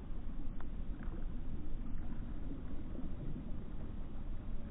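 Small waves lapping and washing against the rocks at the water's edge: a steady low wash with a few faint splashes.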